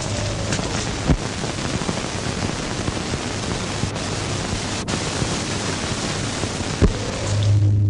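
Steady rushing noise, even and hissy, with two sharp clicks, one about a second in and one near the end. Just before the end the rushing drops away and a steady low hum takes over.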